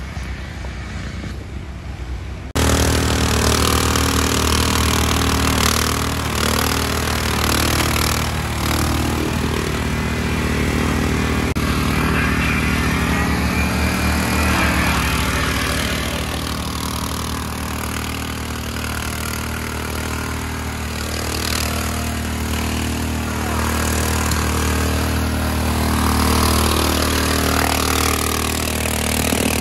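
A modified John Deere riding lawn mower's exposed engine running loudly. It comes in suddenly about two and a half seconds in after a quieter start, then runs on steadily with small rises and falls in pitch.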